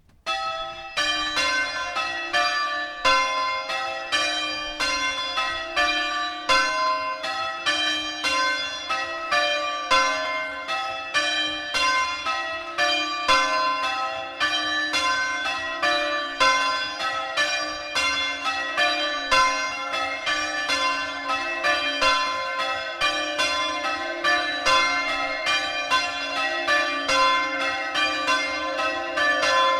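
A ring of three Mears church bells, tenor in C, rung full circle: a loud, steady, even run of bell strokes that begins abruptly.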